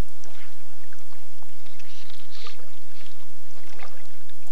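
Steady hiss and low hum of an old VHS tape recording, with a few faint, soft swishes.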